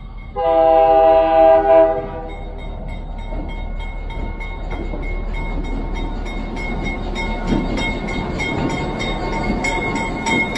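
EMD GP9 diesel locomotive sounding its multi-note air horn in one blast of about two seconds. Its engine then rumbles louder as the locomotive rolls slowly past close by, with a bell ringing repeatedly.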